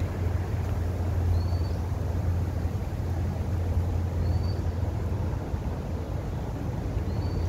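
Steady low rumble of city traffic. A bird gives a short rising call about every three seconds.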